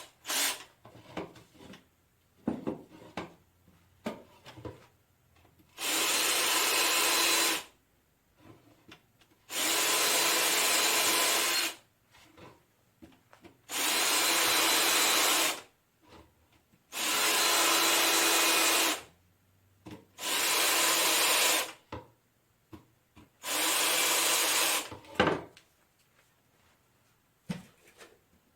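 A hand-held power tool run in six short bursts of about two seconds each, with small knocks and clicks of handling between the bursts.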